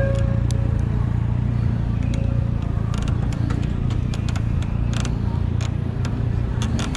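Steady low rumble of wind and road noise while riding an e-bike through city streets, with scattered sharp clicks in the second half.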